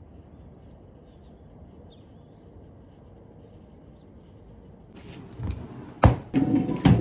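Faint steady hiss for about five seconds, then loud clattering with sharp knocks, two of them standing out near the end, like things being handled and set down.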